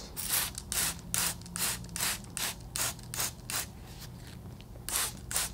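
Spray bottle spraying the backs of houseplant leaves in quick hissing squirts, two to three a second. The squirts pause about two-thirds of the way in, then two more come near the end.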